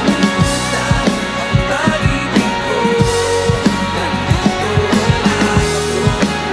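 Rock music: electric guitar and electric bass playing over a steady drumbeat.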